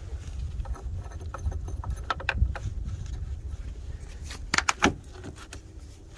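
Metal clinks and clicks of the battery hold-down bracket and hand tools being worked free, with a few sharp knocks about two seconds in and a louder cluster near the end. A low steady rumble sits under them.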